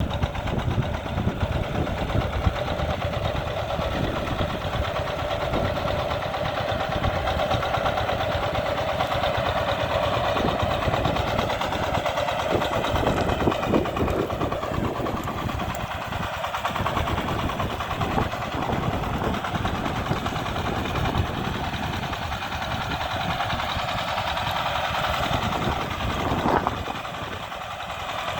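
Single-cylinder diesel engine of a walk-behind power tiller running steadily with a rapid, even chugging as the machine is driven through brush.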